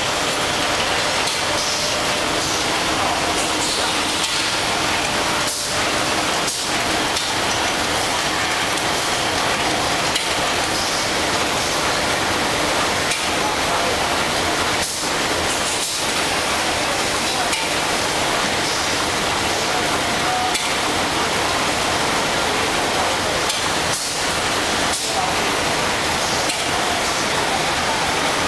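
Automatic facial tissue production line running: steady machine noise from the packing machinery and pack conveyor, with faint clatter.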